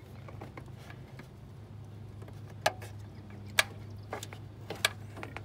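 Sharp clicks and knocks, four or five in the second half, as the valve cover of a Land Rover 200TDI diesel is worked loose and lifted off the cylinder head, over a steady low hum.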